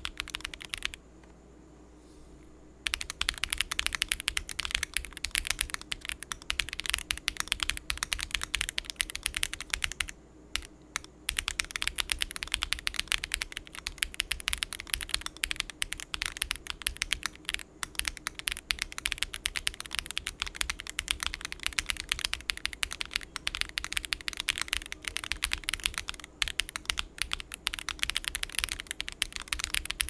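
Mechanical keyboard typing on an Akko ACR Pro Alice Plus: gasket-mounted, polycarbonate plate, lubed Akko Crystal switches and ASA-profile keycaps. Steady fast keystrokes with two short pauses, one about a second in and one about ten seconds in; the later part is heavy typing.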